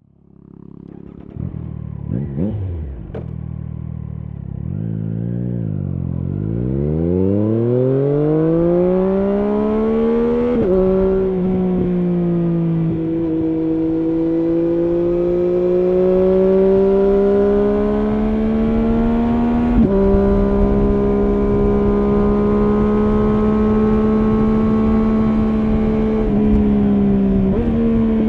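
Triumph Street Triple S inline three-cylinder engine through an SC-Project SC1-R slip-on exhaust with its dB killer fitted, heard from the rider's back. It idles with a couple of quick blips of the throttle, then pulls away with the pitch rising steadily, drops at a gear change about ten seconds in, and runs on at a fairly steady speed with further gear changes near the twenty-second mark and near the end.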